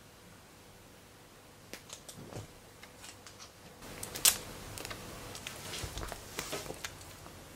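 Plastic Churu treat stick crinkling and crackling as it is torn open by hand, starting about two seconds in, with one sharp tear about four seconds in.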